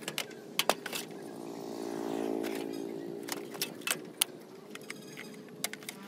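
Sheet-metal parts of a burned desktop computer case clicking and clattering as the power supply unit is worked loose and pulled out by hand. An engine hum swells and fades in the background about two seconds in.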